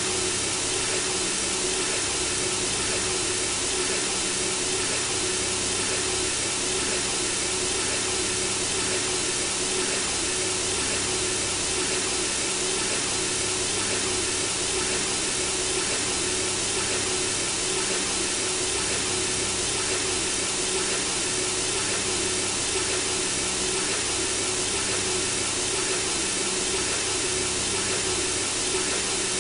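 Synthesizer-generated white noise: a constant, even hiss with a faint steady low tone underneath.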